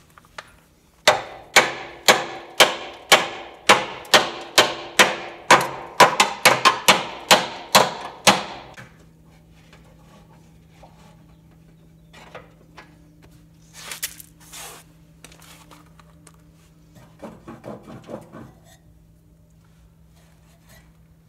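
Hammer blows on a seized mower-deck blade spindle to free it: about twenty sharp, ringing strikes, about two a second at first and quickening toward the end. Quieter clicks, a short hiss and a brief rattle follow.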